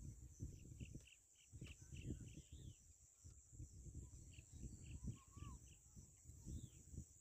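Faint outdoor ambience: a bird calling in quick runs of five or six short high notes, twice, with a few single slurred notes between, over low uneven rumbling on the microphone.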